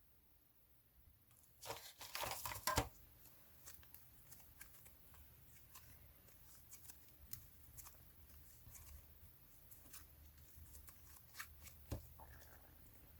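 Slime being mixed and stretched by hand: a loud run of crackling and tearing about two seconds in, then faint scattered clicks and pops.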